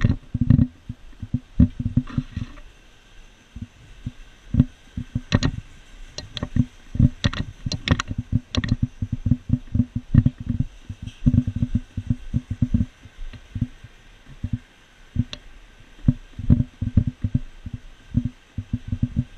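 Airsoft guns firing, mostly single shots in quick, irregular runs of several a second, each a dull low thump, with a few sharper cracks among them.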